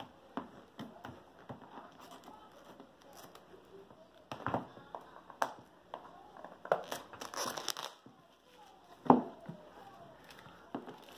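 Plastic packaging crinkling and rustling as it is handled and opened, with scattered clicks and taps and one sharp knock about nine seconds in.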